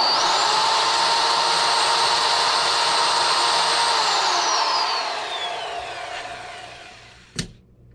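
Corded electric drill running at full speed with a long bit chucked loosely so it has play and vibrates, then winding down after the trigger is released about four seconds in. A single short knock comes near the end.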